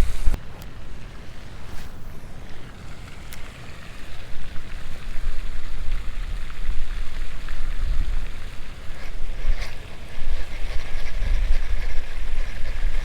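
Strong gusty wind buffeting the microphone: a deep rumble that swells and drops with the gusts, with a few faint clicks.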